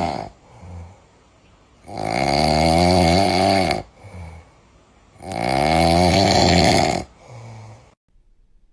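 Sleeping cat snoring: two long, loud snores of about two seconds each with a wavering pitch, softer breaths in between.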